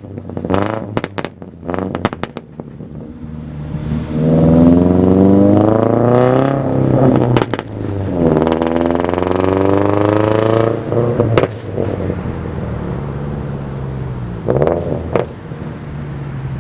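2013 Subaru Impreza 2.0i's FB20 flat-four engine and exhaust, with a few short revs at first. The car then accelerates through two gears: the note rises, drops at a shift about seven and a half seconds in, and rises again. Near eleven seconds it lets off and settles to a steadier, lower drone.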